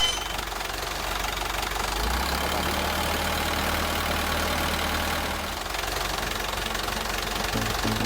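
Truck engine running steadily, with a deeper low hum that comes in about two seconds in and drops away about five and a half seconds in.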